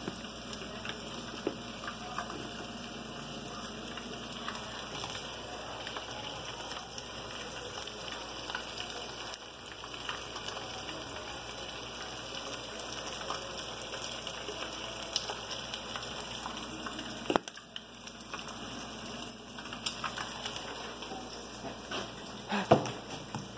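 Fish fillets frying in oil in a skillet: a steady sizzle with a light crackle of small pops. Two sharper knocks stand out near the end.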